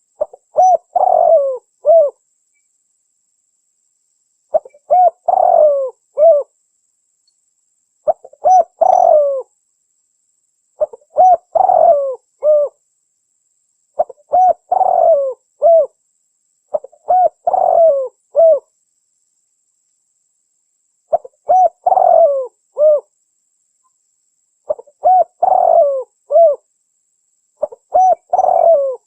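Spotted dove cooing: a phrase of several short coos, repeated nine times at intervals of about three seconds.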